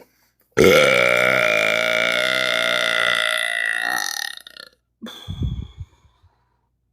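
A woman's long, loud belch that starts suddenly and is held at a fairly steady pitch for about four seconds, followed about a second later by a short low rumble.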